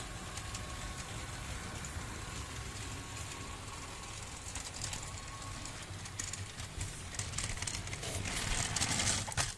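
OO gauge model electric locomotive running on a model railway, a steady low motor hum with wheels rattling over the track as it hauls tank wagons, and a thin whine through the first half. Near the end a louder rattling noise builds for about two seconds and stops abruptly.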